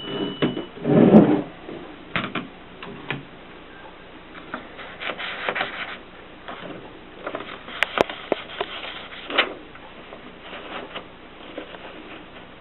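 Mercedes typewriter mechanism being handled: scattered clicks, knocks and rubbing, with a heavier thump about a second in.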